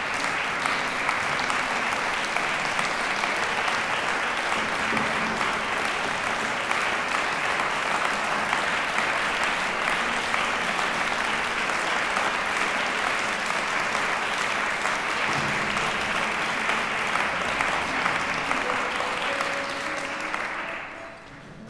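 Concert audience applauding steadily, the clapping fading out near the end.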